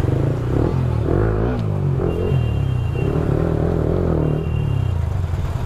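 Motorcycle engine running at low speed in slow traffic, a steady low rumble with other vehicles' engines around it.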